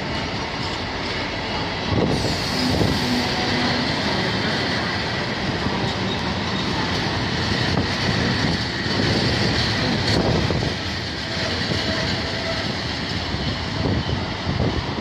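Freight train of covered hooded wagons rolling past on steel wheels: a steady rumble with knocks over rail joints and faint steady high wheel squeal.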